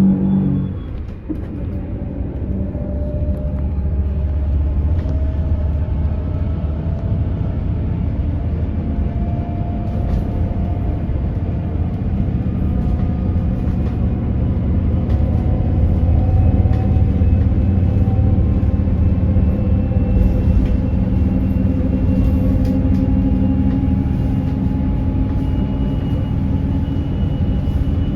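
Hydrogen fuel-cell bus's electric drive motor whining while the bus gathers speed, its tones slowly rising in pitch over a low road rumble. This is the odd motor noise the bus is known for.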